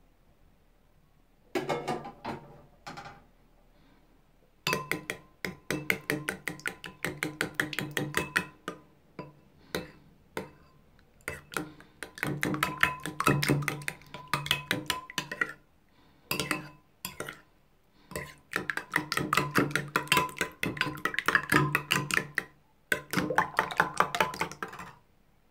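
A metal fork beating raw eggs in a ceramic bowl. It makes rapid clicking strokes against the bowl, in bursts of a few seconds with short pauses between them.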